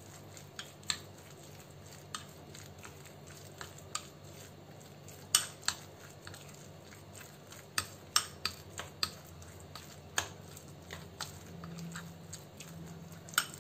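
Metal spoon stirring a thick semolina-and-yogurt batter in a glass bowl, with irregular clinks and taps of the spoon against the glass.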